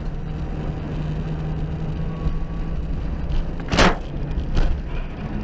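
A car driving on a wet road, with steady engine and tyre noise heard from inside the cabin. About four seconds in comes a loud bang as the unlatched hood flies up against the windshield, followed by a second, lighter knock.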